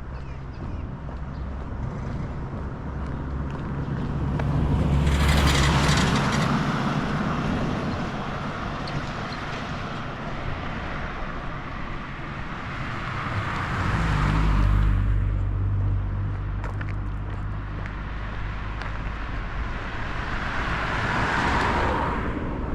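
Vehicles passing one after another on a narrow street, three times: each one swells up and fades away over a few seconds, with a low engine rumble in between.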